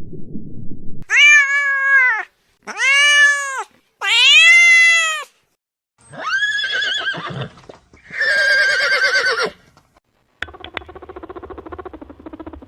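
A cat meowing: five drawn-out, high-pitched meows, each rising and falling in pitch, the last two wavering. A quieter, rapid buzzing rattle follows near the end.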